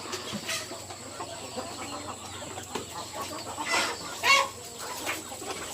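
Flock of Indonesian village chickens (ayam kampung) clucking, with two louder calls about four seconds in.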